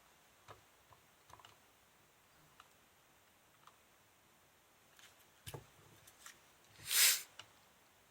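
Faint, scattered light clicks and taps from soldering work on a circuit board's pins, with a short hiss about seven seconds in.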